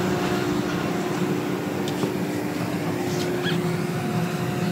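Steady running drone of shipboard machinery, a constant engine hum with a few faint clinks over it.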